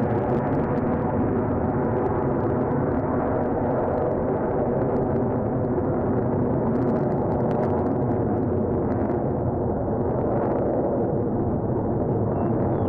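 Steady jet engine noise from a four-ship diamond of Blue Angels F/A-18 Hornets flying with smoke on. The noise is deep and dull, with little hiss.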